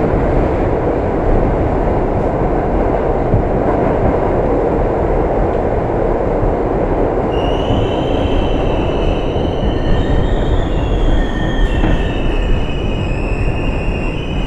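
New York City Subway R62A car running on the 1 line, heard from aboard: a steady loud rumble of wheels and running gear. From about seven seconds in, a high metallic squeal with several wavering tones rides over it.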